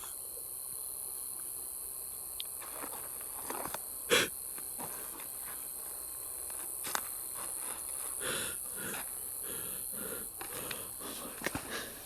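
Steady high-pitched chorus of night insects in the woods, with scattered rustles and a single sharp knock about four seconds in.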